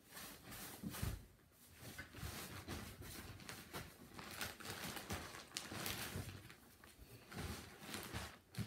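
Irregular rustling and a few soft knocks of someone moving about right next to the microphone.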